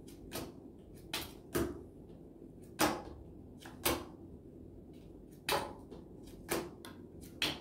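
Playing cards flipped and slapped down one at a time onto a tabletop, about eight short soft smacks at irregular intervals of roughly a second.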